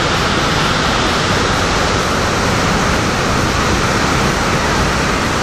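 Lodh Falls in monsoon spate, heavy water pouring down the cliff in a steady, loud rush with no breaks.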